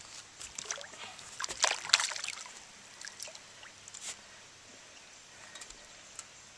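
Water splashing and sloshing at the surface from hooked largemouth bass being drawn in on the line, with a burst of sharp splashes about two seconds in.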